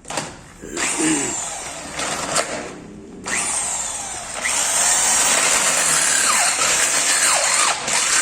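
Electric drill boring into a motorcycle's stock exhaust muffler. It runs in short spells with brief stops at first, then without a break through the second half, its whine sliding down in pitch now and then.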